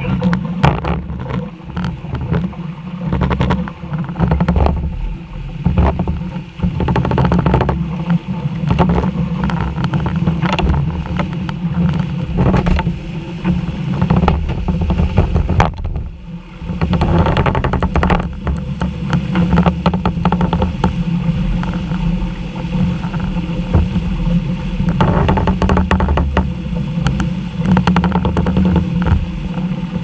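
A motorboat engine running steadily at an even pitch, dipping briefly about halfway.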